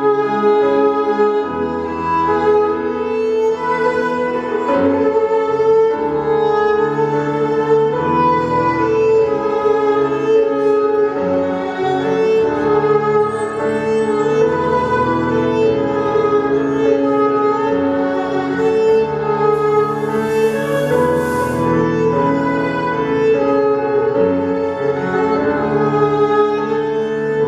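Recorded dance music with violin, cello and piano playing sustained, flowing melodic lines over a bass line. A short burst of hiss sounds for about two seconds in the middle.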